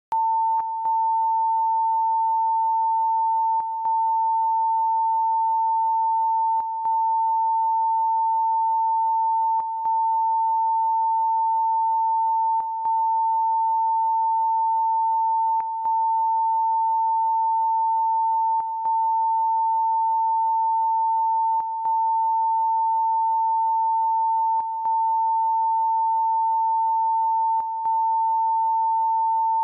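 Broadcast line-up test tone played over colour bars: a single steady pitch, briefly cut out about every three seconds, the break pattern of the EBU stereo line-up tone that marks the left channel.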